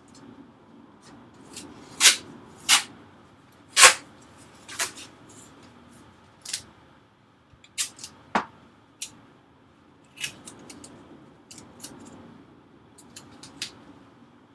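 Strips of masking tape being torn and handled, heard as a series of short, sharp rasps and crackles. The loudest three come about two to four seconds in, with smaller ones scattered through the rest.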